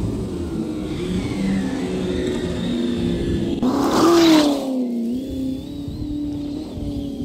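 Simulated engine sound from an ESS-One sound-kit speaker on an electric Traxxas Slash 4x4 RC truck, revving up and down as the truck is driven. About four seconds in there is a louder rush as the truck sweeps past, its engine note swooping up and then falling.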